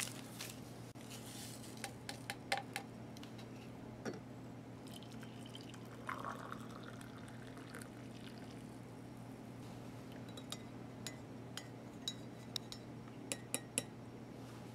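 Water poured from a spout into a ceramic mug, filling it with coffee; faint, with scattered light clinks and drips.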